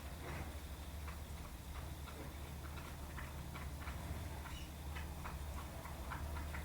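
Sparrows pecking seed from a plate: quick, irregular taps of beaks, coming thicker in the second half, over a steady low hum.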